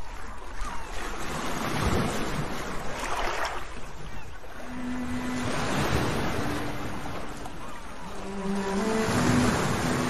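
Sea waves surging and washing, swelling twice, with soft sustained melody notes coming in about halfway through.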